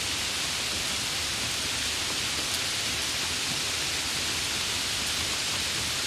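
Steady heavy rain: an even, unbroken hiss of falling rain with no distinct drops or thunder.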